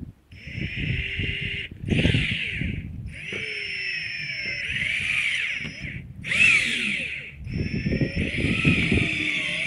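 DeWalt cordless drill boring a hole through a camper roof. It runs in about five bursts with short pauses, its motor whine sliding up and down in pitch over the grinding of the bit.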